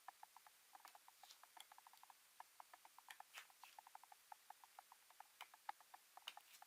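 Faint, rapid, irregular light clicking and tapping, several small clicks a second.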